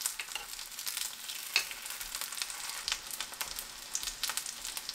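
Egg-battered hairtail fillets frying in oil in a pan on low heat: a steady sizzle with scattered crackles and pops, the sharpest about one and a half seconds in.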